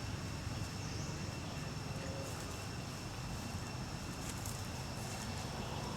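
Outdoor background ambience: a steady low rumble with two faint, steady high-pitched tones held throughout, and a few faint clicks.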